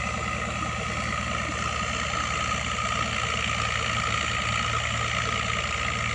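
A motorboat's engine running steadily at an even throttle, with a fast low throb and a steady whine over the rush of water.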